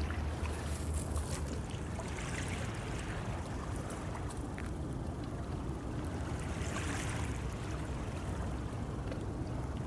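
Lakeshore ambience: a steady low wind rumble on the microphone over small waves lapping gently at a pebble shore, the wash swelling slightly a couple of times.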